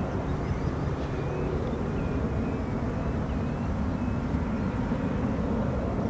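Steady low rumble of a Cessna Citation VII business jet's engines, heard from afar, with a few faint bird chirps above it.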